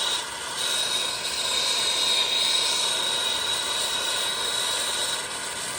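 Air-acetylene torch on a small MC tank burning steadily under a pot of water, a constant hiss with a thin high whine in it. The flame noise dips briefly about a quarter second in and again near the end.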